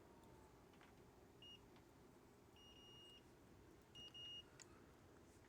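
Multimeter continuity tester beeping faintly three times: a brief beep, a longer one of about half a second, then a shorter one, each time the probes bridge a connected path. The beeps confirm that the repaired connections on the circuit board conduct.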